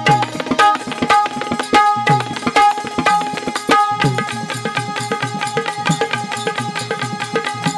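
Instrumental music with no singing: a hand drum played in rapid strokes, its low strokes bending in pitch, over a steady held melody note.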